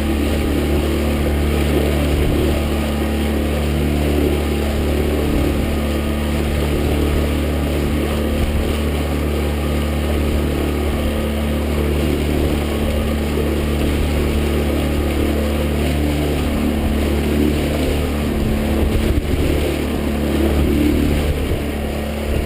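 Yamaha 9.9 hp outboard motor running at a steady speed, with a hiss of wind and water as the boat moves through rough chop.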